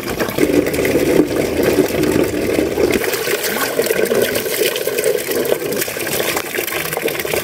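A steady stream of water falling from a pipe spout and splashing into a tub, with a steel pot being rinsed under it.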